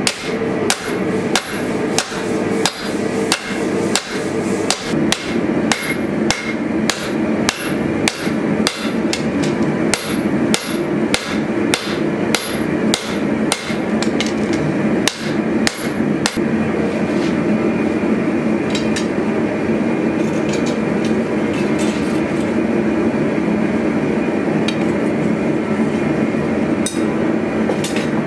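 Hand hammer striking a red-hot sword blade on a steel anvil, about two blows a second, stopping about halfway through. A steady rushing noise runs underneath and is all that is left after the hammering stops.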